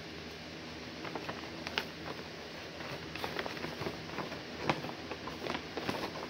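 Items being handled close by: scattered light clicks and rustles, with a sharper tap about two seconds in and another near five seconds, over a steady low hum.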